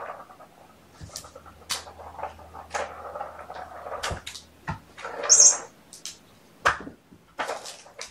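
Kittens' sounds: a string of short, noisy bursts and light knocks about a second apart, the loudest about five seconds in.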